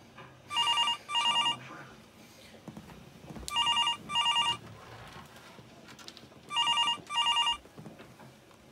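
White corded landline telephone ringing with an electronic double ring. It rings three times, about three seconds apart.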